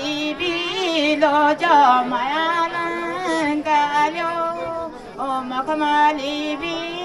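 Women singing a Garhwali folk song, with long held notes that bend up and down between phrases.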